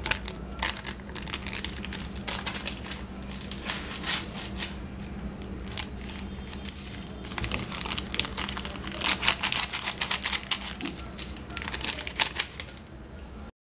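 Baking-powder sachets crinkling and tearing in the hands as they are opened and shaken out over a bowl of batter, in irregular crackly rustles.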